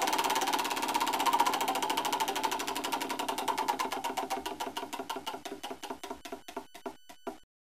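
A rapid mechanical ticking clatter winding down. It starts as a fast whirr, slows steadily to a few ticks a second as it fades, then stops abruptly shortly before the end.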